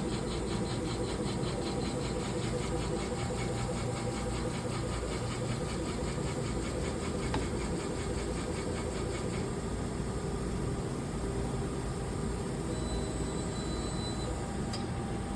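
Universal Laser PLS6.120 laser system running: a steady mechanical whir with a fast, even pulsing over it that stops about nine or ten seconds in. Faint thin high tones come in near the end.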